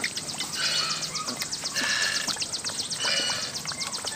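Puppies lapping liquid from a shallow metal bowl: a quick run of wet, slurping licks, several a second. A short high chirp comes back about once a second behind it.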